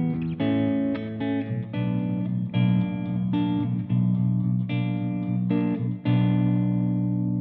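Ibanez GRG7221QA seven-string electric guitar playing a run of chords, a new chord struck about every half second to second. The last chord rings on near the end.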